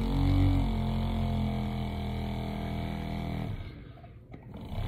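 Vortex mixer motor running with a steady hum while a paint bottle is held on its cup. The hum dies away about three and a half seconds in and starts again near the end. The mixer only runs while the bottle is pressed on it just right.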